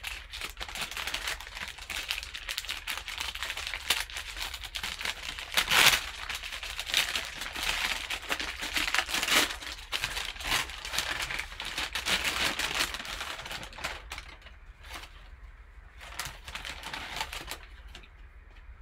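Brown paper bag crinkling and rustling as gloved hands fold and pull it open around a football: a dense crackle with sharper crunches now and then, thinning to a few scattered rustles over the last few seconds.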